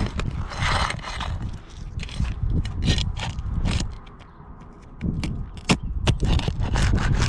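Old, brittle roof shingles being worked loose and handled: irregular scraping with sharp clicks and knocks, easing off briefly about four seconds in.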